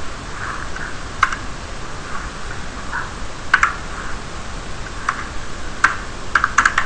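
Computer keyboard keys tapped one at a time over a steady background hiss: a few separate keystrokes, then a quicker run of several near the end as a word is typed and corrected.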